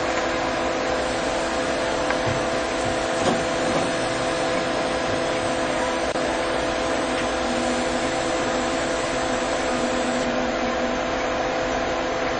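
A steady, even machine hum and hiss, like a motor or blower running, with a faint click about three seconds in.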